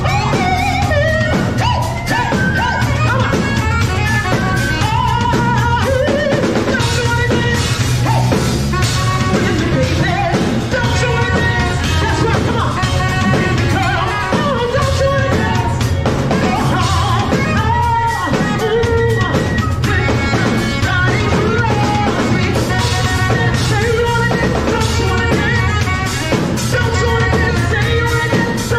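Live band music: a woman singing into a microphone over a drum kit, amplified through small floor speakers.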